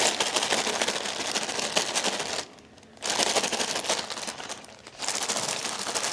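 A plastic food bag being crinkled and rustled in three stretches with two short pauses: the rustle that tells the pet rabbit it is feeding time.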